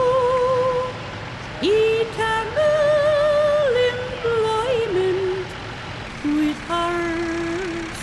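Folk ballad music between sung lines: a slow melody of long, wavering held notes that steps down to lower notes near the end.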